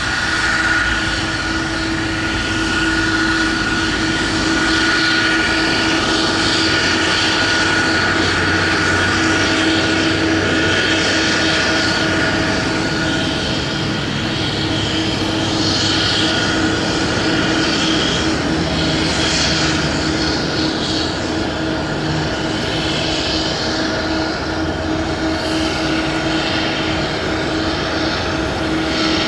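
Boeing 777-200ER's twin turbofan engines running at low thrust as the airliner taxies past, a steady jet noise with a constant high whine over it.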